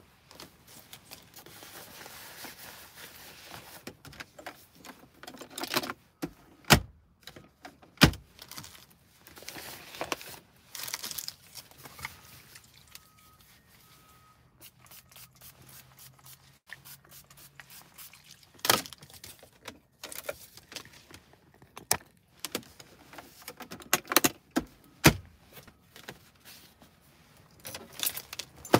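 Small objects handled close to the microphone: irregular rustling and soft knocks, with several sharp clicks scattered through, the loudest about a third of the way in, two-thirds in and near the end.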